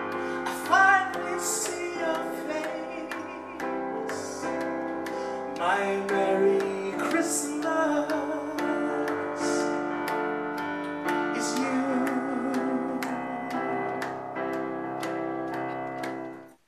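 A man singing a slow Christmas song over sustained keyboard accompaniment with an even ticking beat. The music cuts off abruptly near the end.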